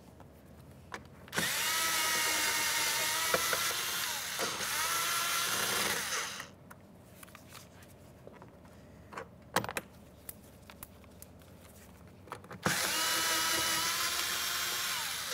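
Cordless drill with a 7 mm socket backing out two door-panel mounting bolts. It runs twice, for about five seconds from just after the start and again for the last few seconds, each time whining up to speed and holding steady. Small clicks and taps of the tool and bolts come between the runs.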